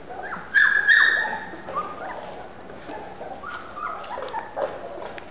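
Young golden retriever puppy crying: high-pitched whimpers and yelps, the loudest about half a second to a second in, followed by several shorter, softer cries.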